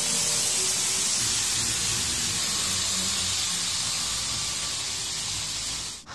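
Märklin 3391 BR03.10 H0 model steam locomotive and its coaches running past on metal track: a steady rushing hiss of wheels with a faint motor hum. It fades a little and breaks off abruptly just before the end.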